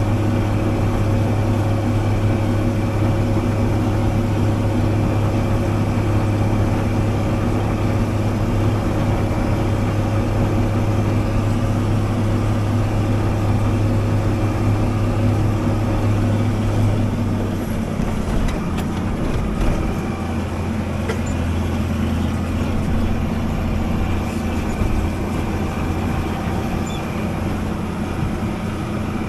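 Diesel engine of a harvest machine droning steadily as heard from inside the cab. About two-thirds through, its note drops slightly and a few faint knocks follow.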